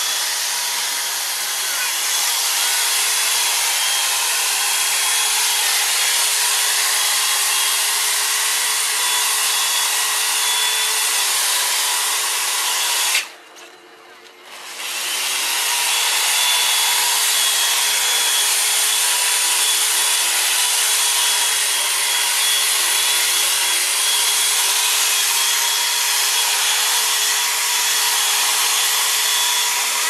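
Handheld electric power tool cutting into a block of ice, its motor running steadily with a whine. It stops about 13 seconds in and starts again about two seconds later.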